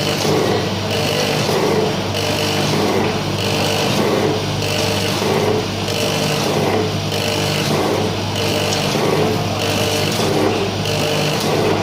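Granule filling and packing machine with a centre-seal bag former running steadily: a motor hum under a mechanical cycle that repeats about once a second, one cycle per bag.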